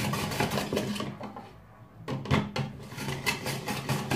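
Hand-cranked Tupperware Profi Chef Mahlwerk rotary slicer with its slicing drum cutting a cucumber: a rapid, even run of rasping strokes as the crank turns. The strokes pause a little after a second in and start again at about two seconds.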